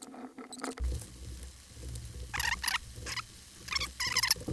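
Crinkling and rustling of carburetor rebuild-kit gaskets and their packaging as they are handled, in several short bursts over the second half.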